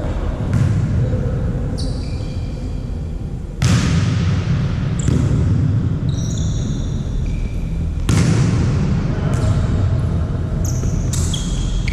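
Volleyball rally sounds on an indoor court: the ball struck sharply a few times, about four, five and eight seconds in, with short high squeaks from sneakers on the court floor. A steady murmur from the gym hall runs underneath.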